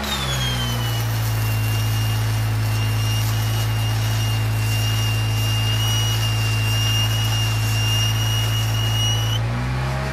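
A Jeep Wrangler engine set at 1500 RPM bogs down in pitch as the stick-welding arc is struck, then runs lower and steady under the on-board welder's load with a high whine. Near the end the arc is broken and the engine picks back up. The crackle of a 6013 rod's arc sits faintly underneath.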